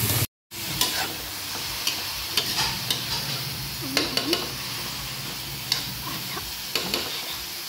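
Sliced kamansi (breadnut) and tomatoes sizzling in a hot pan while being stir-fried, with a steady hiss and a spatula scraping and clicking against the pan every second or so. The sound drops out briefly about a third of a second in.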